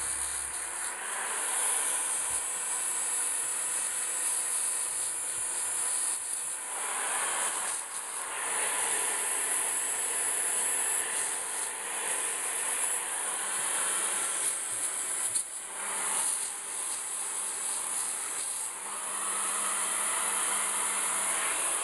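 Electric drill spinning a 120-grit abrasive flap wheel against the rusty steel head of a sledgehammer, sanding the rust off: a steady high hissing whine that dips briefly twice, about 8 and 15 seconds in.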